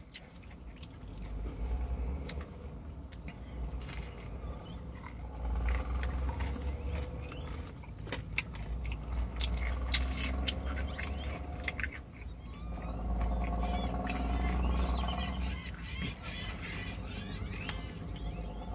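Close chewing and mouth clicks from someone eating fried chicken, with birds chirping and a low steady hum underneath.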